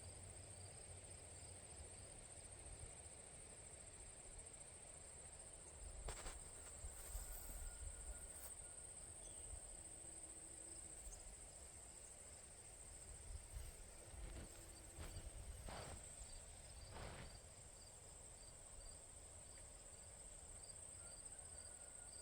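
Steady high-pitched chorus of crickets, faint, with a few soft knocks and a low rumble underneath.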